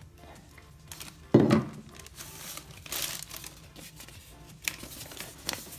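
Paper instruction leaflet rustling and crinkling as it is handled and unfolded. A single loud knock about a second and a half in.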